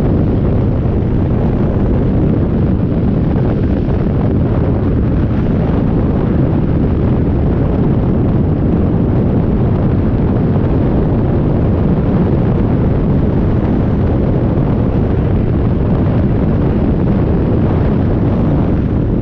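Wind buffeting the microphone over a Harley-Davidson motorcycle's V-twin engine running at a steady cruise. The noise is loud and even, with no sharp changes.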